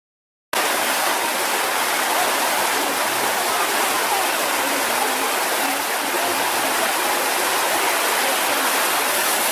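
Steady rushing of a waterfall, water pouring down a sloping rock face. It starts abruptly about half a second in and holds an even level.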